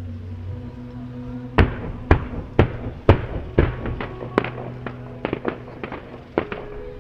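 Fireworks shells bursting in a run of sharp bangs, about two a second from a second and a half in, then smaller, quicker cracks near the end. Music with long held low notes plays throughout.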